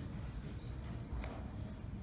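Low steady room hum with a few faint laptop keyboard taps as a short phrase is typed.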